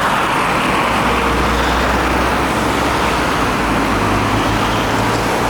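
Steady loud rushing noise with a low hum underneath, from vehicles running at a car wash.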